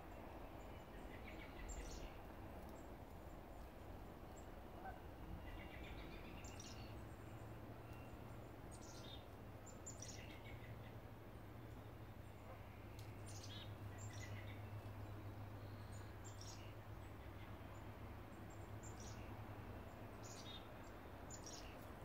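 Chickadees calling faintly, a scattered series of short high calls that sweep downward, some followed by lower repeated notes, over a steady low background hum.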